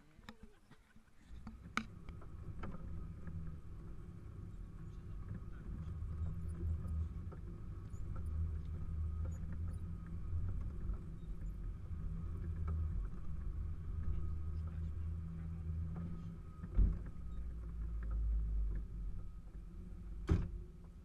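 Off-road 4x4's engine running at low speed, a steady low rumble picked up by a camera mounted on its bonnet as it crawls along a rutted forest track. There are a few sharp knocks, one about two seconds in and two more near the end.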